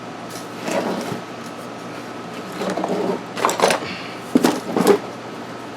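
Four or five short scraping, rustling noises from hands working on a car's AC evaporator box, most likely as the pad is pulled off the coil, over a steady low hum.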